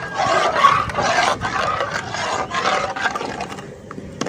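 Metal ladle scraping around the bottom of a metal pot as milk is stirred: repeated rasping strokes about twice a second, growing fainter near the end.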